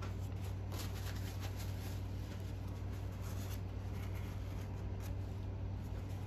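Faint rubbing, scraping and light ticking as small nitro-engine parts are handled on the bench, mostly in the first three or four seconds, over a steady low hum.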